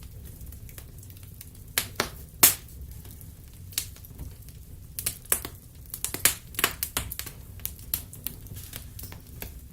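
Wood burning in a fireplace, crackling with irregular sharp pops and snaps over a low steady rumble. A few louder pops come about two seconds in, and a busier run of snaps starts about five seconds in.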